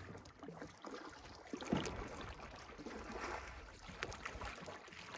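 Faint water sounds from a canoe being moved along a river by its crew, with a brief louder stroke-like sound about a second and a half in.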